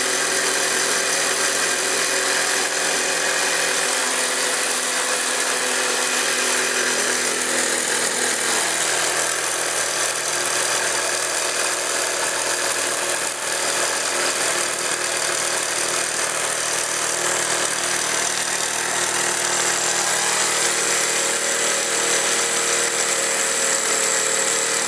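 Small live-steam model traction engine running unloaded at high speed with its drive band removed, a steady fast mechanical whirr and rattle that holds even throughout.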